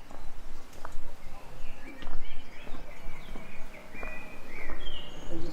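Small birds chirping in short, quick notes, starting about two seconds in, over a low background rumble of village hum.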